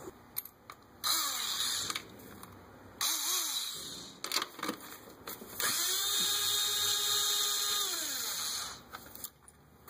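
Small cordless power driver spinning an 8mm deep socket to run out bolts, in three bursts, the last lasting about three seconds, its motor whine rising in pitch as it starts and dropping as it stops.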